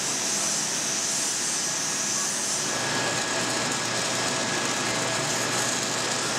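Angle grinder grinding the end of a steel pipe, a steady high hiss, giving way partway through to the crackling hiss of arc welding on the pipe.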